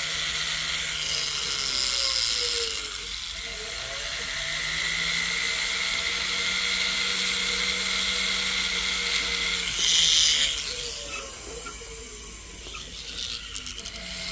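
Small jeweler's rotary tool running, its motor hum shifting up in speed and later dropping back, with a grinding hiss as the bit cleans up the sides of a gold chain's end tab; the hiss swells briefly about ten seconds in.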